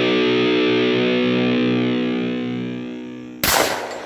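Heavy metal music: a distorted electric guitar chord ringing out and slowly fading. About three and a half seconds in, a single loud bang cuts in, the loudest sound here, and dies away quickly.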